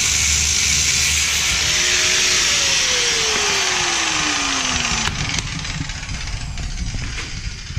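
Cut-off wheel grinding through the exhaust pipe's connections with a loud, steady hiss. From about two seconds in, the tool's motor winds down, falling steadily in pitch, and the grinding fades. A few light clicks and knocks come near the end.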